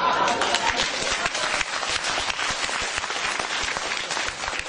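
Audience applauding, many hands clapping, gradually thinning out.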